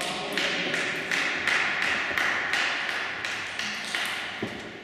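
A table tennis ball being bounced over and over, about three light taps a second, each with a short echo from the hall.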